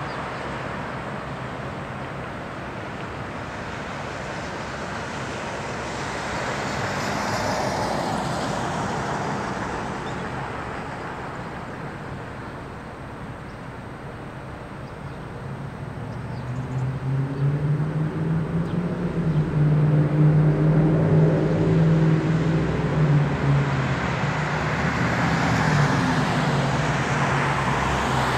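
Traffic noise, then a Peterbilt semi-truck's diesel engine comes in about halfway through: a deep, steady engine note that grows louder, holds for several seconds and eases a little near the end as the truck and its moving-van trailer drive past.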